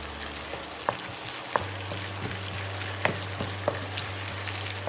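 Garlic and onion sautéing in hot oil with fish sauce, sizzling steadily, while a utensil stirring the pan clicks against it a few times.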